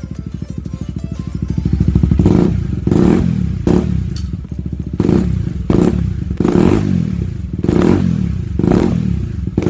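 KTM Duke 250 single-cylinder engine idling through an Akrapovic slip-on exhaust. From about two seconds in it is given a series of short throttle blips, about one a second, each revving up and falling back toward idle.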